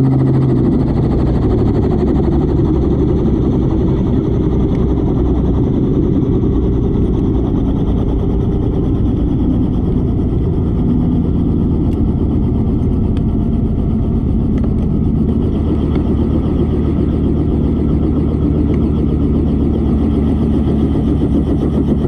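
A vehicle engine running steadily, heard as a loud, even low rumble.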